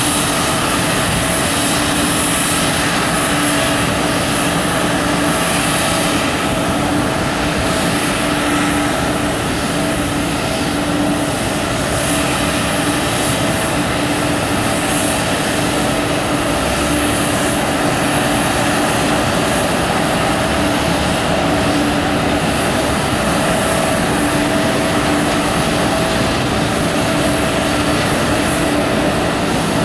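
Boeing 777 airliner running steadily on the apron while being pushed back by a tug. A loud, even jet rush with a constant low hum under it.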